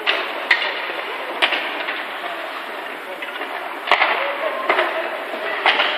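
Ice hockey play: a steady hiss of skates on the ice, broken by several sharp clacks of sticks and puck, with voices in the background.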